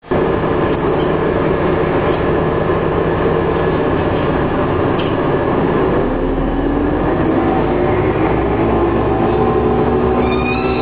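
Mercedes-Benz Citaro G articulated bus heard from inside the passenger saloon: the engine runs steadily, then from about six seconds in its note climbs as the bus pulls away.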